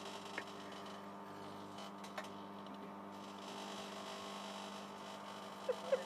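Microwave oven running with a steady electrical hum, with a couple of faint ticks.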